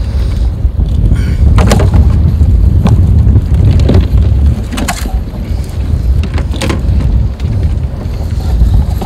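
Strong wind buffeting the microphone on a kayak in choppy water, a steady heavy rumble, with several short knocks and clatters from gear being handled aboard the kayak.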